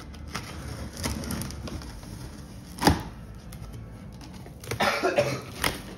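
Kitchen knife slitting the packing tape on a cardboard shipping box: scraping and rustling of blade on tape and cardboard, with a sharp knock about three seconds in.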